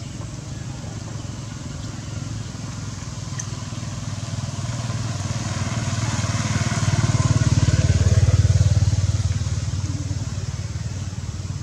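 A motor vehicle passing by: its engine hum grows louder to a peak about eight seconds in, then fades away.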